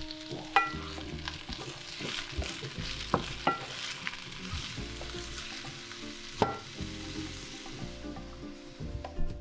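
Carrot slices and red onion rings sizzling in oil in a frying pan while being stirred with a wooden spatula, with a few sharp clicks. The sizzling fades near the end.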